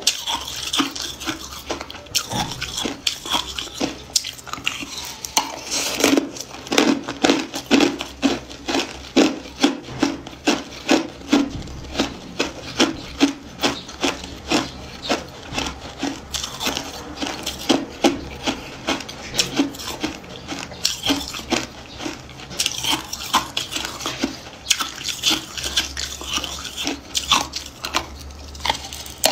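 Hard clear ice being bitten and chewed, a steady run of sharp crunches at about two a second.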